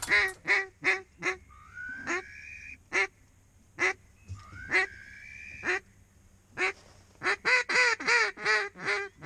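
Hand-blown duck call giving hen-mallard-style quacks, single and spaced at first, then a quicker run of about four a second near the end. Two longer rising whistled notes come between the quacks.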